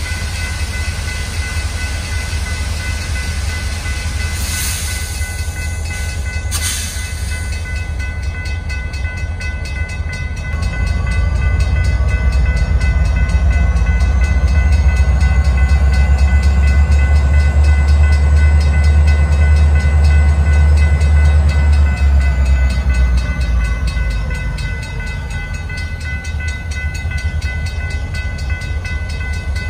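CSX diesel locomotive engine running with a deep, steady rumble as the engine creeps closer. About ten seconds in it throttles up and grows much louder, then eases back down a few seconds after twenty. Two sharp clicks come near the start.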